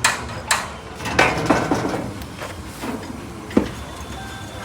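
Sharp knocks and clinks of hard objects being handled: two quick strikes at the start, a rattling clatter about a second in, and one last sharp knock about three and a half seconds in.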